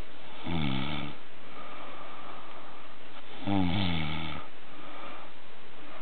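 Snoring: two short pitched snores about three seconds apart, each under a second long, with a breathy rasp between them.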